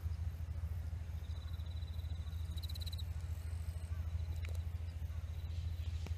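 Insects trilling in the grass over a steady low rumble. One high, pulsing trill starts about a second in, swells and stops near three seconds, and fainter chirps follow.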